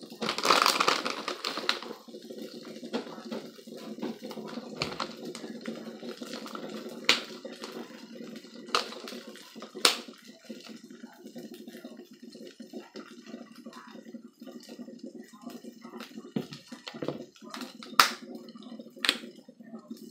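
Omelette frying in a nonstick pan: a soft sizzle with scattered sharp pops, over a steady low hum. A louder noisy burst comes in the first two seconds.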